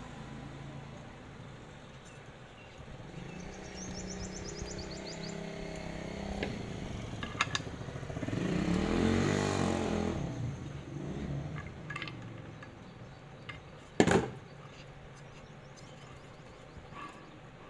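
A motor vehicle passes by, its engine hum swelling and then fading about halfway through. A few light clicks and one sharp knock follow, a few seconds later.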